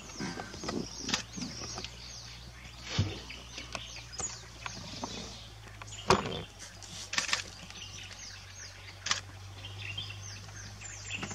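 Small birds chirping with quick falling notes over a steady low hum, broken by a few sharp knocks, the loudest about six seconds in.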